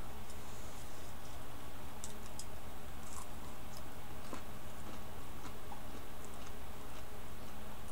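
Scattered light clicks of a computer keyboard and mouse at irregular intervals over a steady low electrical hum.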